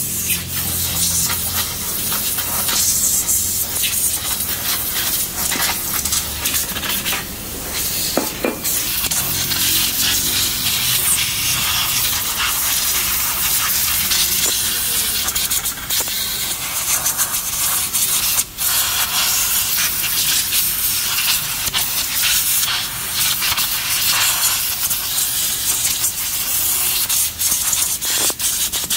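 Compressed-air blow gun hissing loudly, with a few brief breaks, as it blows water off a washed brake drum and then off a rear drum-brake assembly to dry them.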